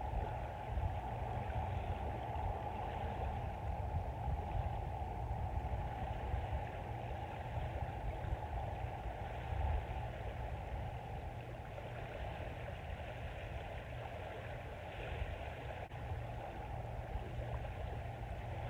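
Small waves washing steadily onto a sandy beach, with wind rumbling on the microphone.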